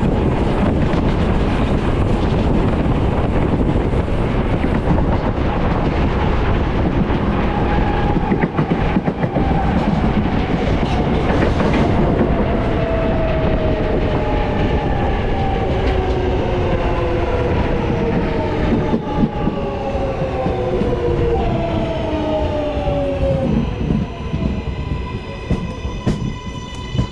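New York City subway L train running on the rails with a loud steady rumble. From about eight seconds in, the whine of its motors falls steadily in pitch as the train slows, and the rumble eases near the end.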